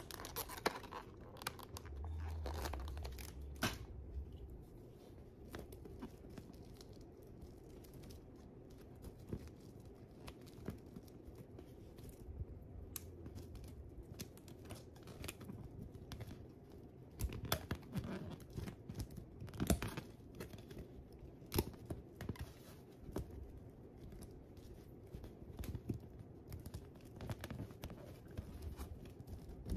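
Handling noise as dried pampas grass is worked into a clear plastic bubble balloon: rustling and crinkling with irregular sharp taps and clicks. A brief low hum comes about two seconds in.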